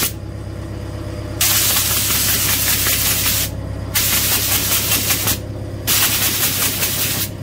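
Compressed-air blow gun hissing in blasts as it blows packed soil dust out of a tractor's clogged air filter element. After a pause of about a second and a half, come three blasts of one to two seconds each, with short breaks between. A steady low hum runs beneath.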